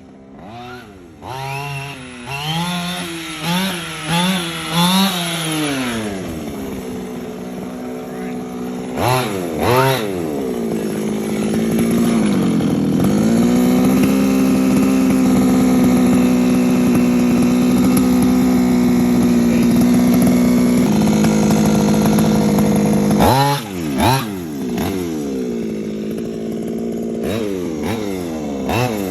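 The small two-stroke gas engine of a Losi 5ive-T 2.0 1/5-scale RC truck being revved during its break-in run. It is blipped up and down several times, held at a steady high speed for about ten seconds, then blipped again near the end. It is really loud and sounds much like a chainsaw.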